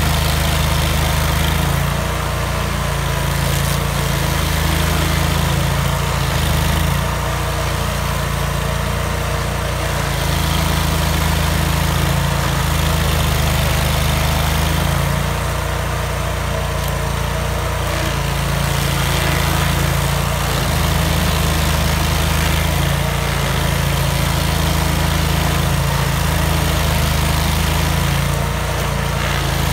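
Vermeer stump grinder running steadily under load as its cutter wheel grinds into a stump. The engine note sags and recovers every few seconds as the wheel is swept across the wood.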